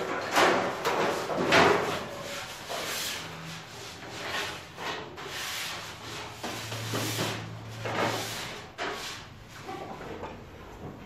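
A string of irregular scraping, sliding swishes as metal baking trays of bread are handled and moved along the rails of a bakery rack, loudest in the first couple of seconds.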